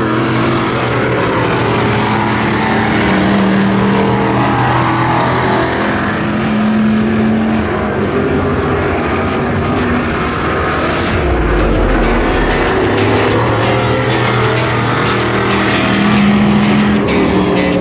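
Dirt-track modified race car engines running at speed, their pitch rising and falling as the cars go around the oval.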